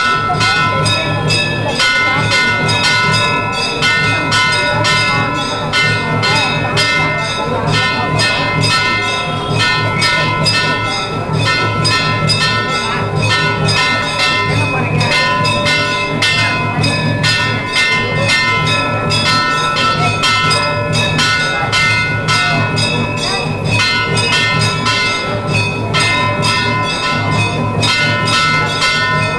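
Temple bells ringing continuously in a fast, even clatter of about four to five strokes a second, the ringing tones held steady over a low drone.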